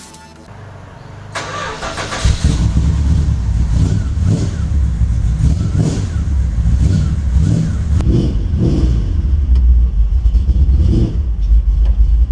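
Dodge Ram D150 pickup engine started: it catches about a second and a half in and runs, rising and falling in speed several times as it is revved.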